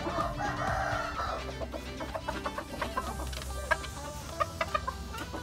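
Bantam Thai gamefowl clucking in short calls, with one longer call in the first second, over background music.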